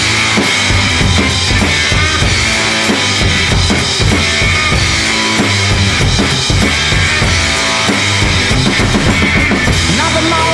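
Garage blues-rock instrumental passage: a full drum kit pounding kick and snare under distorted electric guitar, with no singing.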